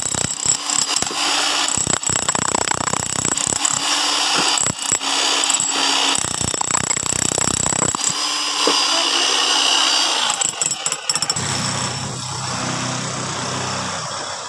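Electric demolition hammer breaking concrete: loud, rapid hammering for about ten seconds, then quieter, with a steady low hum, near the end.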